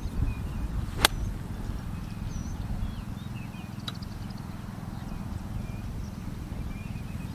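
A golf iron strikes the ball once about a second in, a single sharp click on a full approach swing. Small birds chirp now and then over a low steady rumble.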